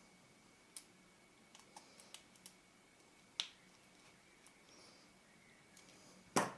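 Scattered faint clicks and light taps of small metal lens parts being handled on the workbench, with a sharper, louder knock near the end.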